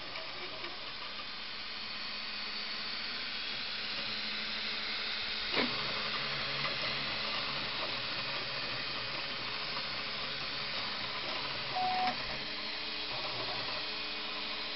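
Ultimaker 2 3D printer running mid-print: steady hiss of the print head's cooling fans with the hum of the stepper motors moving the head. A single sharp click comes about five and a half seconds in, and a short beep near twelve seconds.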